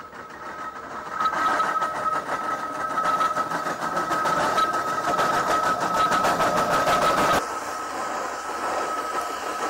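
1916 Ransomes, Sims & Jefferies steam traction engine running, beating in a fast, even rhythm over a steady high whine. The sound changes abruptly about seven seconds in.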